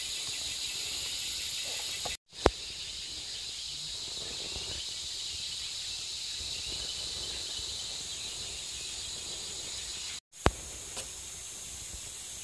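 Steady high-pitched buzz of forest insects, with no saw running. The sound drops out briefly twice, each time followed by a sharp click, about two and a half seconds in and near the end.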